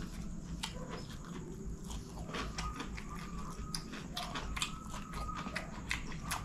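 Close-miked chewing of a mouthful of nasi goreng (fried rice), with wet lip-smacking and a run of irregular sharp mouth clicks.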